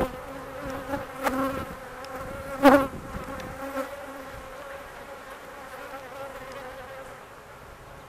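Honey bees buzzing around a hive entrance: a steady hum of many bees. Single bees swell louder as they fly close past, twice in the first three seconds, most strongly at about two and a half seconds in.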